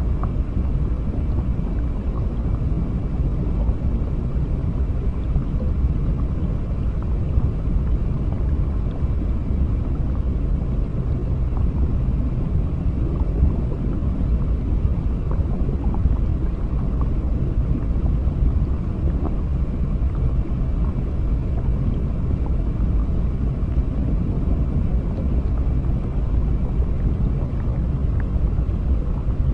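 Underwater ambience: a steady, deep, muffled rumble of moving water with faint scattered clicks and ticks over it.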